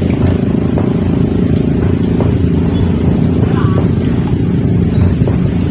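An engine running steadily, a loud, even low drone with no rise or fall in speed.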